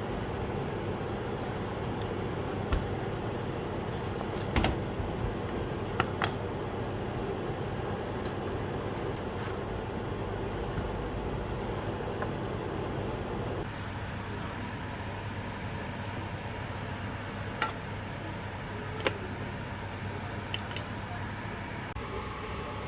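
A steady machine hum with a few sharp clicks and knocks scattered through it; part of the hum drops away about fourteen seconds in.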